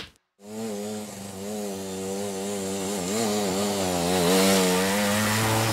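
Suzuki RV125's single-cylinder two-stroke engine running as the bike is ridden, a steady buzzing note whose pitch wavers a little with the throttle. It starts after a brief moment of silence.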